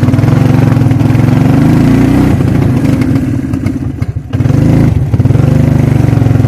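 Suzuki King Quad ATV engine running under throttle. It eases off briefly about four seconds in, then picks back up.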